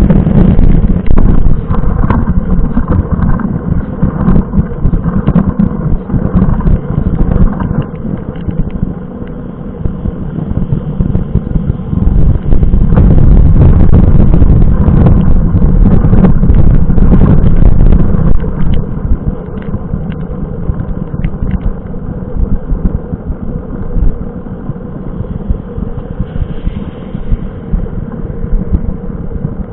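Wind and rain buffeting a bike-mounted camera's microphone while cycling through heavy rain: a steady low rumble with many small taps from raindrops hitting the camera, louder for several seconds around the middle.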